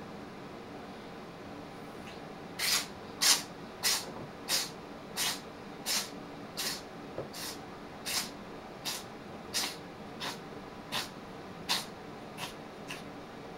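A domestic cat sneezing about sixteen times in a row, a short sharp sneeze roughly every two-thirds of a second, starting about two and a half seconds in, with the last few weaker. The fit is set off by something irritating inside its nose.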